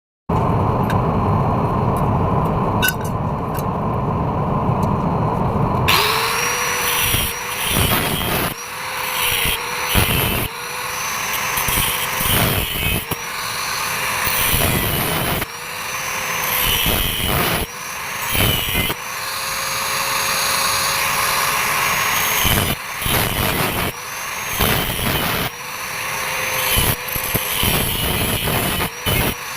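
Electric arc welder in use: a low hum for about six seconds, then a loud crackling hiss with a steady whine, cut by brief drop-outs every second or two.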